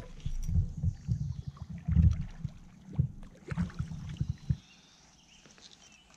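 Paddling a kayak: a run of uneven, dull low thumps and rumble as the paddle works. These stop about four and a half seconds in, leaving only faint quiet.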